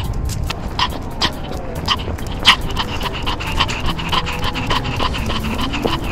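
Small Pomeranian panting hard and fast while running, about four quick breaths a second, close to the microphone, over a low rumble of movement.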